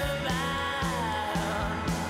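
Soundtrack music with a steady low beat and held notes; a melody line slides down in pitch about half a second in.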